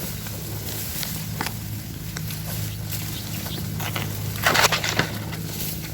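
A big hooked fish thrashing at the water's surface, with scattered small splashes and a loud burst of splashing about four and a half seconds in.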